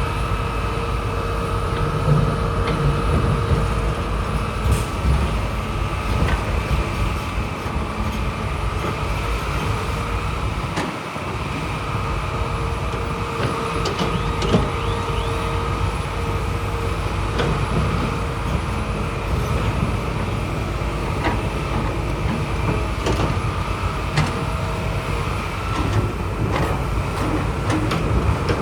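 Heavy earthmoving machinery's diesel engines running steadily under load, with a steady whine over the rumble and scattered clanks and knocks throughout.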